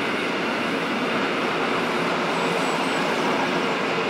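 Rhaetian Railway regional train hauled by a Ge 4/4 II electric locomotive running steadily along a straight: an even running noise with no distinct clicks or changes.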